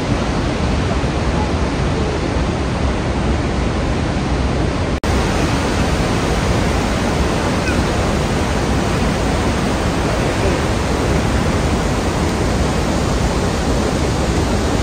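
Iguazú Falls' many cascades rushing steadily in a dense, even roar of falling water. The sound drops out for an instant about five seconds in.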